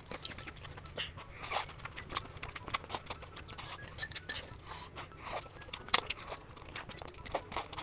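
Close-miked eating: irregular crunching and wet chewing clicks as a mouthful of food is bitten and chewed.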